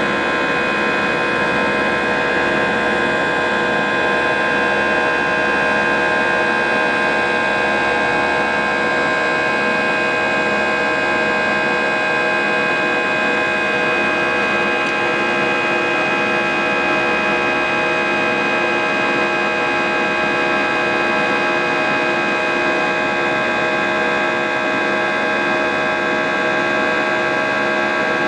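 Cabin noise of an Airbus A321 climbing after takeoff: its CFM56-5B turbofan engines running steadily at climb thrust, an even rushing noise with several steady tones humming through it.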